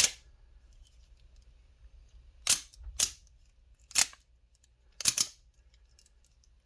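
Maxace Neptune out-the-front knives snapping their blades out and back: about five sharp, loud clicks spaced irregularly over several seconds, two of them in quick succession near the end.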